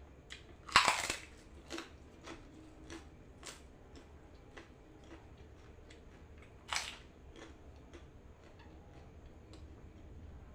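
A person chewing a mouthful of fried rice and noodles close to the microphone: a loud crunch about a second in and another near seven seconds, with short wet chewing clicks about twice a second between.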